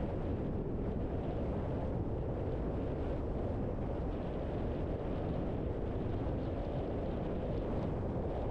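Steady low rumble of a car's tyre and road noise while driving at an even speed, with no distinct engine note or events standing out.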